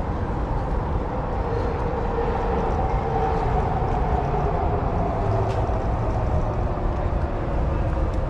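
Steady city street traffic noise with a low rumble, and a vehicle's engine hum that swells and fades about two to five seconds in.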